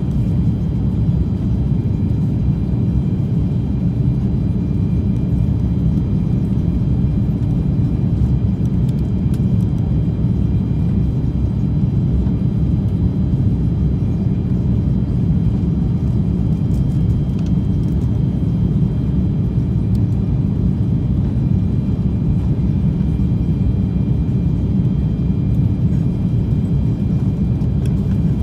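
Steady low rumble inside the cabin of a Lufthansa Airbus A340-600, the airliner's engine and airflow noise heard from a rear window seat, with a faint steady high whine above it.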